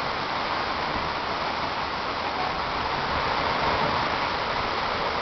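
Heavy hurricane rain pouring in a steady, even hiss, driven by strong wind.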